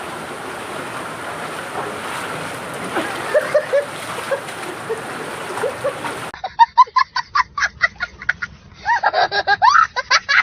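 Steady rush of a waterfall, with a few faint shouts over it. About six seconds in, it cuts abruptly to a quieter recording full of rapid, excited voices.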